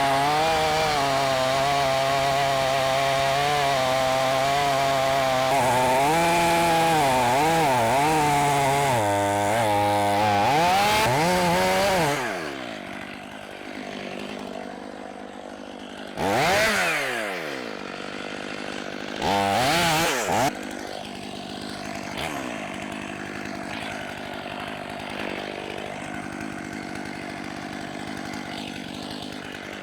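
Two-stroke chainsaw cutting at full throttle for about twelve seconds, its pitch wavering as the chain bites into the pecan wood, then dropping to idle. It is blipped up twice more, briefly, and settles back to idling.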